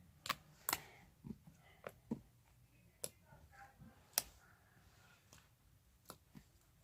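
Glossy slime being squished in the hands, giving faint, irregular sharp clicks and pops, about nine over the few seconds, the loudest a little past the middle.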